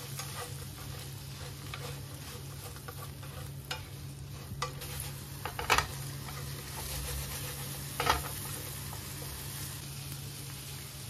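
Prawns sizzling in a soy-sauce glaze in a nonstick frying pan while chopsticks stir them, with a few sharp knocks of the chopsticks against the pan, the loudest about six and eight seconds in. A steady low hum runs underneath.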